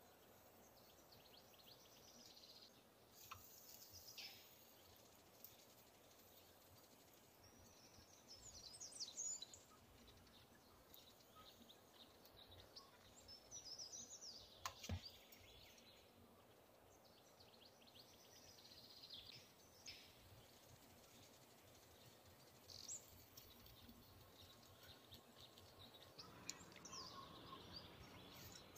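Near silence, broken every few seconds by faint high bird chirps, with a single light tap about halfway through.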